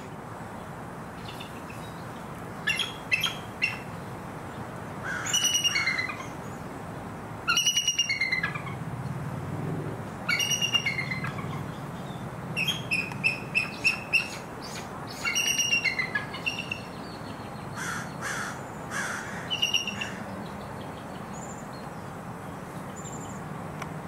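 Bald eagle calling: high, thin, piping chirps and squeals, in short bouts of a few quick notes repeated over most of the stretch, with a fast run of notes near the middle.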